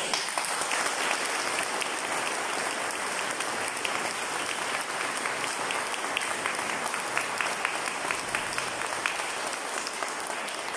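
Audience applauding steadily, a dense patter of many hands clapping that dies away near the end.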